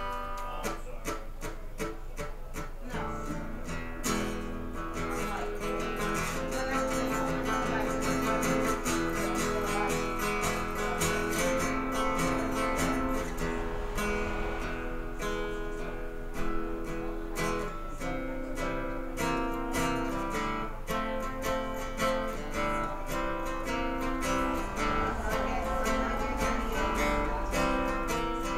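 Live acoustic guitar strummed in an instrumental passage, with chords that change every second or two and no singing.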